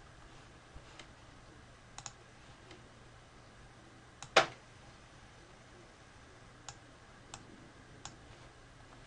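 Scattered faint clicks of a computer mouse, with one much louder click about four and a half seconds in, over a faint steady low hum.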